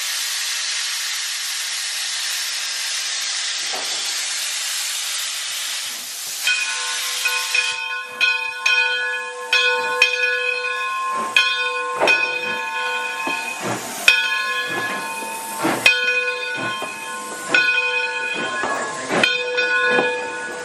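A 4-4-0 steam locomotive hissing steadily as steam blows from its cylinder cocks; about six seconds in, the hiss stops and a ringing tone, struck again about once a second, sounds over the locomotive's regular beat as it starts to pull out, typical of the engine bell rung on departure.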